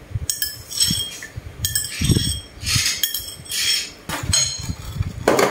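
Metal spoon clinking against ceramic bowls while a dipping sauce is spooned and stirred: a string of short, ringing clinks, roughly one every half second to second.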